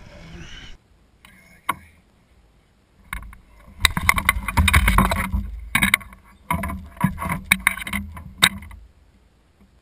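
Handling noise on an Ascend H12 kayak: a sharp click, then from about three seconds in a dense run of knocks, clicks and bumps against the hull and gear as a freshly caught largemouth bass is handled and laid against a measuring board, stopping shortly before the end.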